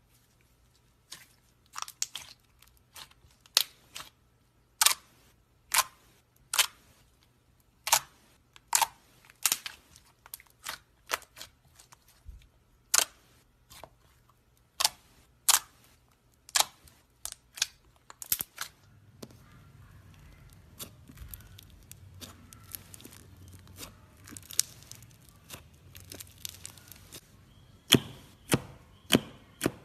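Slime pressed and squeezed by hand, giving sharp clicking pops about two a second. Past the middle it turns to a softer, continuous squishing with scattered pops, then a few loud pops near the end as a finger pokes into the slime.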